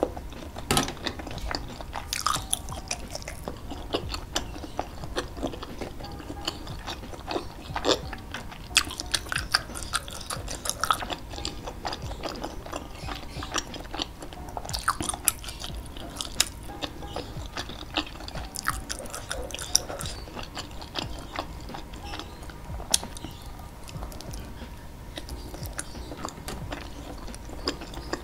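A person chewing and biting skewered meatballs (bakso) coated in red chili sauce, with many short, sharp mouth clicks throughout.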